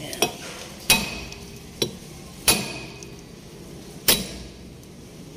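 Steel breaker bar struck against a rusted rear brake drum of a Mazda 323 Familia to knock the drum loose from the hub, where dirt holds it tight. Three hard metallic blows land about a second and a half apart, with two lighter knocks between them, and each blow rings briefly.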